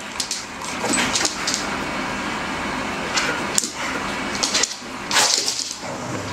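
A dog's sounds, with sudden hissy bursts about a second in, again after three seconds, and twice more near the end.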